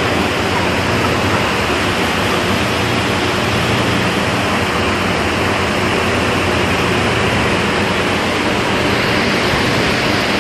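Loud, steady rushing machinery noise with a low hum underneath: the constant industrial din inside a chicken slaughterhouse's holding shed.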